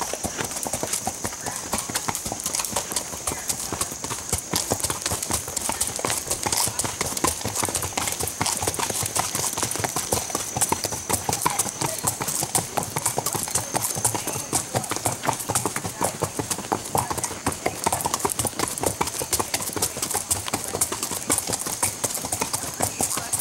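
Several horses walking on a gravel trail, hooves clopping in a dense, uneven patter, with a steady high-pitched whine behind them that fades about halfway through.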